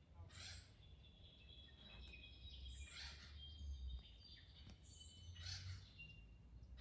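Faint birds calling at dusk. A harsh, raspy call comes three times, about every two and a half seconds, with thin high whistled notes between, over a low rumble.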